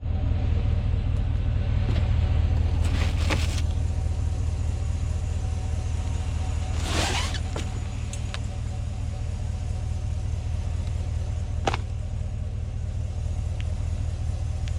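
Truck running on the road, a steady low engine and road rumble heard from inside the cab, with a few brief rattles.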